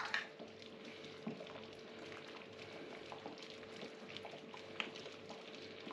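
A metal ladle clinks against the pot once at the start, then thick vegetable broth is ladled into a bowl: faint wet liquid sounds and a few small taps of the ladle over a low steady hum.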